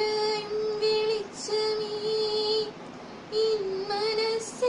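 A girl singing solo with no accompaniment, a single voice holding long, steady notes of about a second each and sliding briefly between them.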